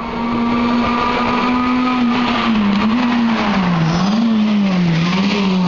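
Rally car engine at speed on the stage, its note held steady at first, then rising and falling several times from about two seconds in as the car comes past close by.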